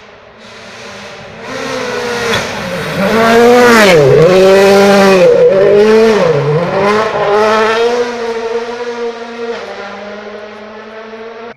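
A rally car passing at speed on a gravel stage: the engine note swells as it approaches, drops and picks up again sharply twice, about four and six and a half seconds in, then fades as the car pulls away.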